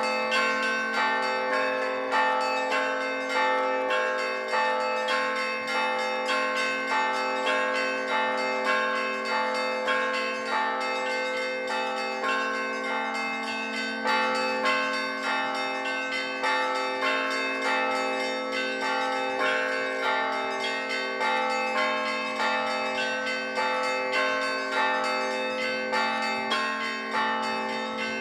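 Russian Orthodox church bells rung in a continuous peal: smaller bells struck in quick, repeating rhythmic patterns over the steady hum of a lower bell.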